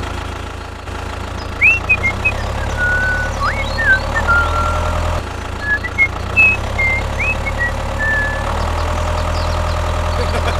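Small motor of a homemade mini construction machine running with a low hum and a whine, its level shifting a few times. Short high chirps sound over it.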